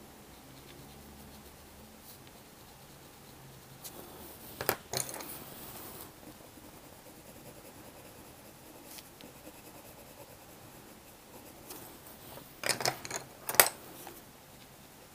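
Faint scratching of coloured pencil on paper, with a few sharp clicks and clatters about five seconds in and again near the end as pencils are put down and picked up.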